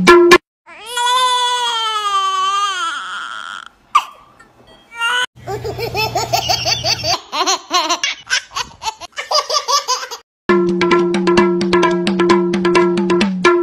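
A baby gives a long wavering cry, then laughs in a run of short rapid bursts. About three-quarters of the way through, music with a steady drum beat starts.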